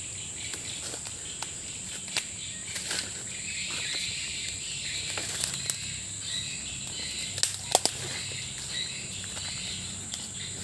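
Steady high-pitched drone of insects, with a few faint clicks. About seven and a half seconds in come two sharp cracks in quick succession, the loudest sounds here: the shot that downs the ground pigeon.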